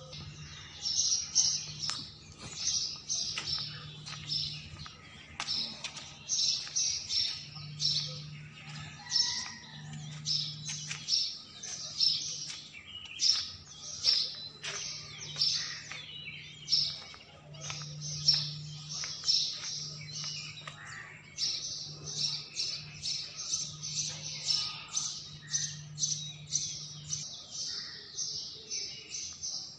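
Small birds chirping: a continuous run of short, high chirps, about two to three a second, with a low hum coming and going underneath.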